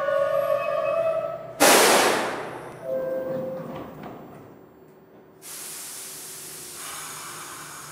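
New York City Subway train sounds: a whining tone from the moving train, rising slightly, then a sudden loud hiss of air about a second and a half in that fades over about a second. A second steady hiss starts abruptly about five and a half seconds in, from the train standing at the platform.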